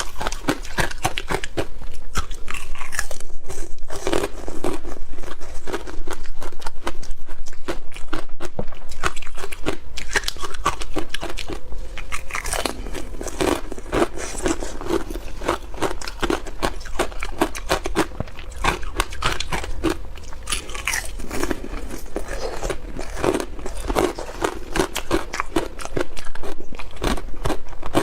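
A person biting into and chewing ice close to the microphone: continuous crunching, full of sharp cracks, in bouts of repeated bites.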